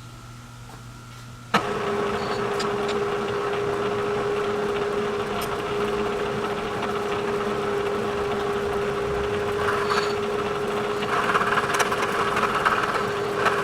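Bridgeport milling machine taking a light skim cut along the side of a workpiece. A low steady hum gives way about a second and a half in to a sudden, much louder steady cutting sound with one constant tone, which turns rougher near the end.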